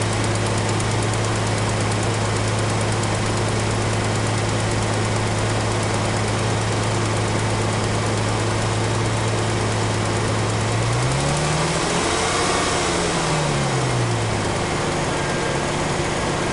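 2004 Ford Mustang's 3.9-litre V6 idling with a ticking, revved once about eleven seconds in so the pitch rises and falls, then settling back to idle. It is a start-up tick that persists after the exhaust manifold bolts were tightened and usually fades after about 30 seconds; its cause is unknown.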